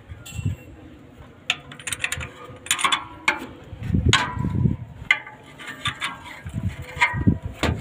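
A 24 mm wrench working the nut of an excavator injector connector: bursts of sharp metallic clicks and clinks as the wrench is turned and repositioned.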